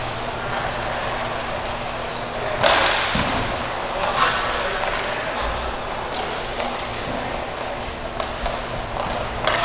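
Hockey sticks clacking against a puck and against each other during play, a handful of sharp hits over a steady hum; the loudest hit comes a bit under three seconds in, with others around four and five seconds and near the end.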